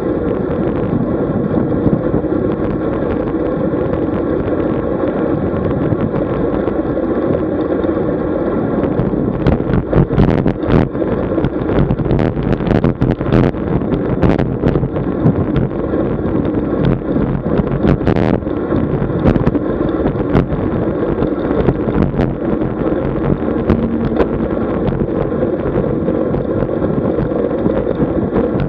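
Wind buffeting the microphone of a camera riding on a road bicycle at speed, a steady rush. Between about ten and twenty seconds in, a run of sharp knocks and rattles cuts through it.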